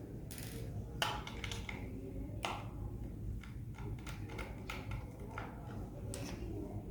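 Irregular plastic clicks and taps from the back cover of a smart doorbell being handled and opened, with the loudest snap about a second in.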